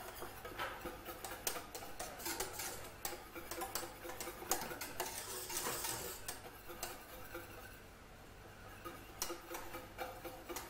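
Wire whisk clicking and scraping against the sides of a stainless steel saucepan, beating pastry cream over low heat as it thickens. The strokes come quick and uneven and ease off briefly in the second half.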